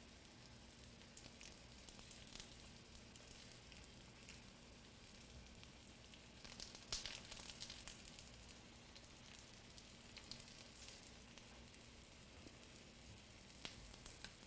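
Broccoli fritters pan-frying: a faint, steady sizzle with scattered crackles. The crackles grow louder for a moment about halfway through.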